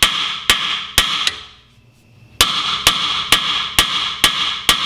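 Hammer blows on a Volkswagen Golf's steel front spindle, about two a second, each strike ringing briefly, with a pause of about a second near the middle. The spindle is being knocked down off the strut tube.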